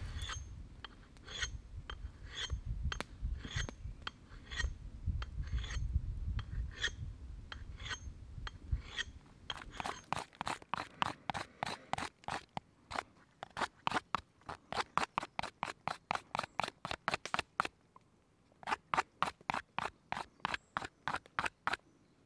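Knife blade scraping and shaving a thin wooden branch in repeated strokes. The strokes are slower and heavier at first, then become quick and regular, about three a second, with a short pause near the end.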